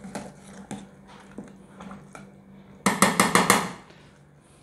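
Spoon stirring a thick sauce in a steel saucepan: faint light scrapes and taps over a low steady hum, then a short rattling clatter of about six quick knocks about three seconds in.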